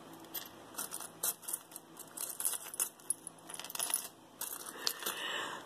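Metal earrings clinking and jingling against each other as they are picked through and handled: a run of quick, light clicks, with a longer rattle near the end.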